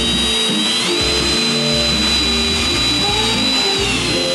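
Cordless drill running at steady high speed as it bores a hole through the edge of a widebody fender flare, with a high whine that steps up slightly in pitch about a second in. Background music plays underneath.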